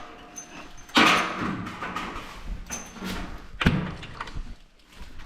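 Handling noise from fitting the vacuum hose to the freeze dryer: sharp clunks and knocks with rustling and scraping between them. The loudest knocks come about a second in and again just before four seconds.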